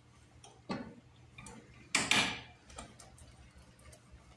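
A spoon stirring thick cassava-flour porridge (pirão) in a stainless steel pot, giving a few scattered light knocks and scrapes against the pot, the loudest about two seconds in.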